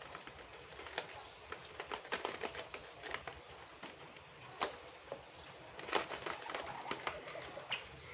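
Irregular clicks and short scrapes of a rubber-bladed squeegee and wooden screen frame being handled as red ink is pulled across the silk-screen mesh to print onto a foam food container.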